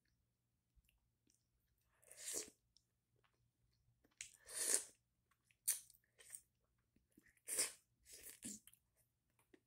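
Wet biting and chewing of a whole sauced octopus, in several short bursts with pauses between.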